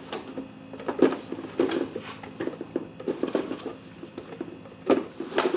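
Cardboard product box being handled and pulled apart by hand: scattered light taps, scrapes and rubbing, with the loudest knock about five seconds in.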